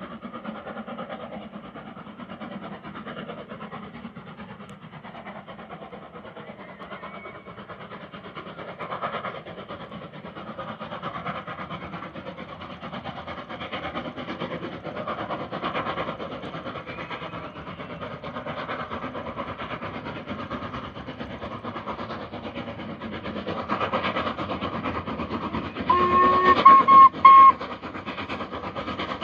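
LMS Jubilee class 4-6-0 steam locomotive Sierra Leone and its train running, a steady rumble with rail clatter that grows louder from about halfway. Near the end the locomotive's whistle sounds, a blast of about a second and a half broken once, the loudest thing here.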